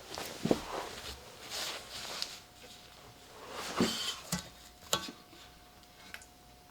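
Handling noises: scattered clicks and knocks with some scraping and rubbing between them, the sharpest about half a second in and again near four and five seconds, over a faint steady tone.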